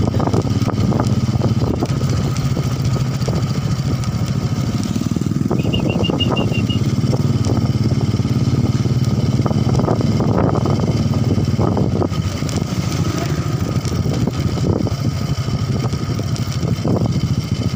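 Motorcycle engine running steadily while riding, heard from on the bike.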